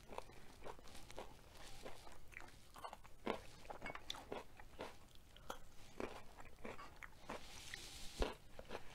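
A person biting and chewing crunchy food close to the microphone: many short, irregular crunches, a few a second, with wet mouth sounds.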